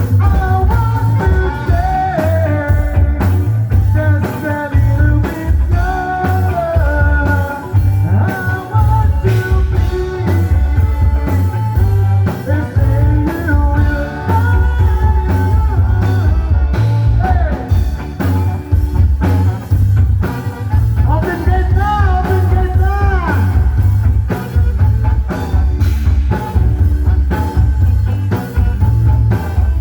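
Rock song with a singing voice over loud bass and drums.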